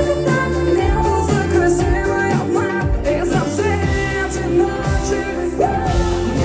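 Pop song performed live by a band, with a woman singing over steady bass and drums.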